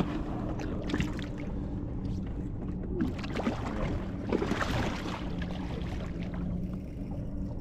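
A boat's motor humming steadily, with water sloshing and splashing against the boat, loudest about four to five seconds in.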